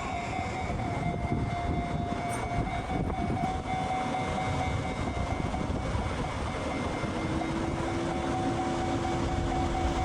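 Train running past, a dense low rumble with a steady high tone over it that turns intermittent in the second half; a second, lower steady tone joins about seven seconds in.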